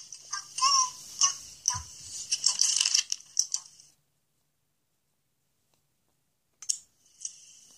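Quick clicking and rattling of small hard objects for about four seconds, then it stops dead, with one more click near the end.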